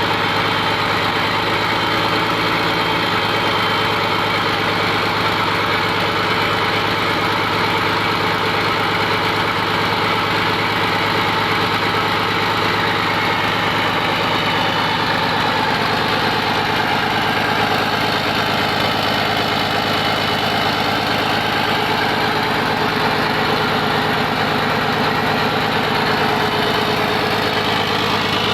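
Komatsu PC200-8M0 excavator's six-cylinder diesel engine running steadily at an even speed after an overhaul.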